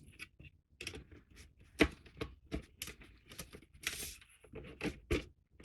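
Hard plastic parts of a Polar Lights 1:350 U.S.S. Enterprise model clicking and scraping against each other as a warp nacelle is pushed onto the pylon, in irregular small clicks and rubs, the sharpest about two seconds in.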